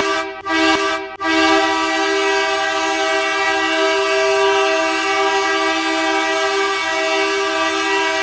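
Quebec Remparts hockey goal horn: two short blasts, then one long, steady blast held for about seven seconds.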